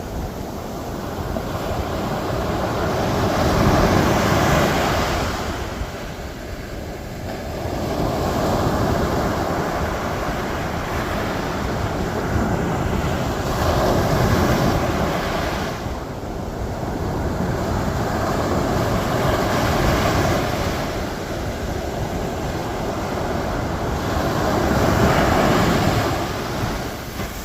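Ocean waves breaking and washing up a sandy beach, the surf swelling and falling back about every five seconds.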